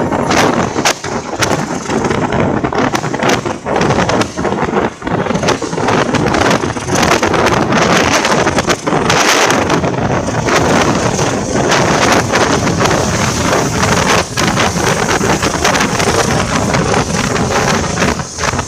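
Passenger train running, heard from the open vestibule between carriages: wind buffeting the microphone over the rumble of the train and an irregular clatter of wheels on the rails.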